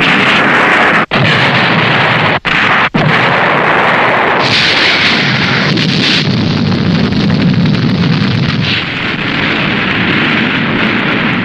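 Tokusatsu film explosion sound effects played one after another, split by three brief cuts in the first three seconds. A hissing layer joins about four seconds in, then gives way to a long, deeper rumbling blast.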